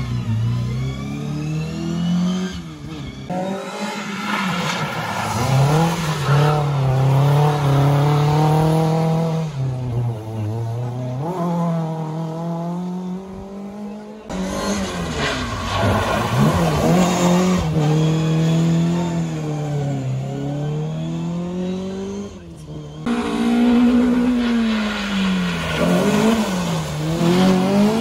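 Rally cars' engines revving hard as they accelerate away one after another, the pitch climbing and dropping with each gear change. Each car's run is cut short and the next begins, about 3, 14 and 23 seconds in.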